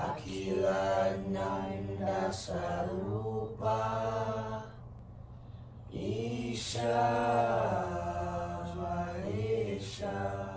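Intro music of wordless chanting voices holding long notes over a steady low drone, in two long phrases with a short break near the middle.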